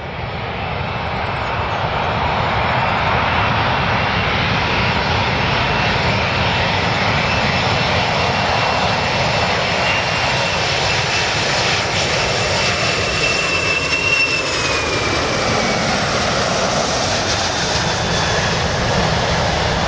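Four-engine Boeing 747-400 airliner's jet engines on landing approach: a steady rushing noise with a high whine, growing louder over the first couple of seconds. The whine drops in pitch about 14 seconds in as the plane passes.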